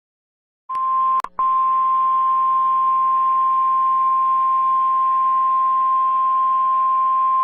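NOAA Weather Radio warning alarm tone: a single loud, steady tone near 1050 Hz with a faint hiss beneath it. It starts about a second in, drops out briefly with a click, then holds without change. This tone is the alert that a weather warning broadcast follows.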